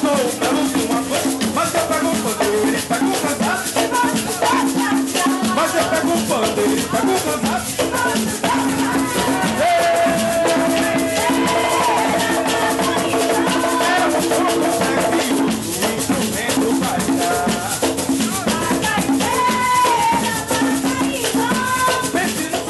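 Folk percussion music: a shaker rattles steadily and densely over drums, with a melody line of held and gliding notes above.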